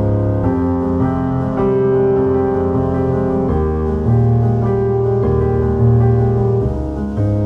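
Background music: slow piano chords, held notes changing about every second.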